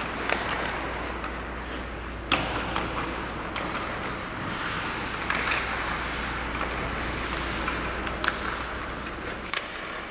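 Pickup ice hockey on an indoor rink: a steady low hum and the hiss of skates, broken by about six sharp clacks of sticks and puck, the loudest about two seconds in.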